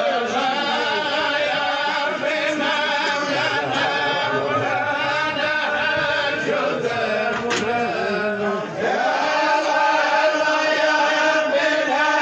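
Men's voices chanting Sufi dhikr, a continuous melodic chant with long held notes. A short click is heard about halfway through.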